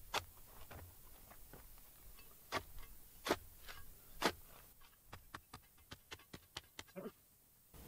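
Trenching shovel blade chopping into hard, dry soil: four sharp strikes over the first four and a half seconds, then a run of fainter clicks. The sound cuts off just before the end.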